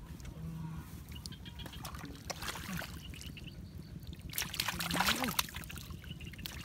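Hands and a plastic scoop scraping and splashing in shallow muddy water, in irregular splashes that are loudest about four to five seconds in.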